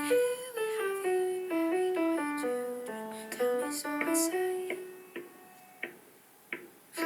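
Piano playing a single-note melody that steps downward and then climbs back. It fades about five seconds in to a brief near-silent pause with a few faint clicks, and the playing resumes near the end.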